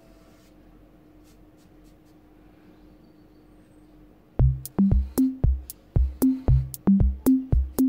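Background music: for the first four seconds only faint scratches of a marker on paper, then an electronic drum beat with deep kicks, crisp high hits and a short bass note comes in about four and a half seconds in and keeps a steady rhythm.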